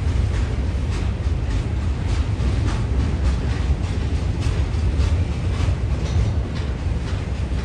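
Double-stack intermodal freight train rolling past. Its container-laden well cars make a steady low rumble, with short clicks repeating every half second or so as the wheels pass over the rail.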